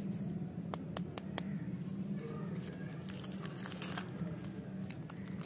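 Plastic lollipop wrapper crinkling and tearing as it is pulled open by hand: a few sharp crackles about a second in, then a denser run of crinkling.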